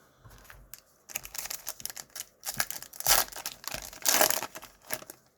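Wrapper of a baseball card pack being torn open and crinkled. A dense run of rustling, crackling bursts starts about a second in, loudest twice near the middle.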